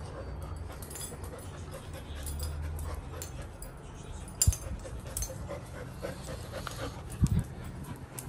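Labrador puppy panting as it moves about, with a couple of sharp clicks, about four and a half and seven seconds in.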